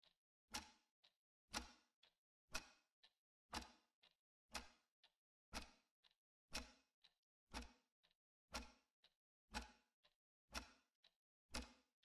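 A clock ticking steadily, one sharp tick each second with a fainter click between them.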